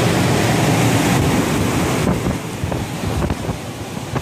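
Hurricane-force wind rushing across the microphone in a dense, steady roar that eases about two seconds in to lower, gusty buffeting.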